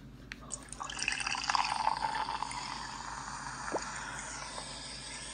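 A drink-simulator app's liquid sound effect, a steady pouring hiss coming from a tablet's small speaker and starting about half a second in.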